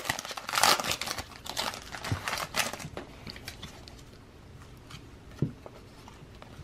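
A trading-card pack's foil wrapper crinkling and tearing open, busiest in the first three seconds, then quieter with a few faint clicks.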